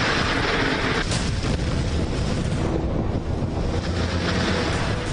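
Loud, steady rushing noise of heavy rain and floodwater, easing off near the end.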